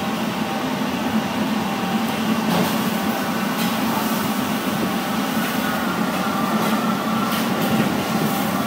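Steady mechanical hum and drone of kitchen machinery, with a few faint ticks now and then.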